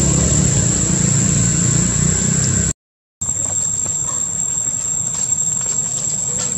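A motor running steadily, a low engine-like hum, until it cuts off abruptly with a brief silence about three seconds in. After that comes quieter outdoor background noise with a few faint clicks and a thin, steady high tone.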